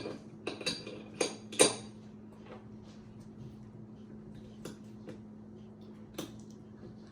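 Sharp metallic clicks and clinks of a 9mm pistol's parts being handled and fitted back together: four quick clicks in the first two seconds, the last the loudest, then a few fainter ticks. A faint steady hum runs underneath.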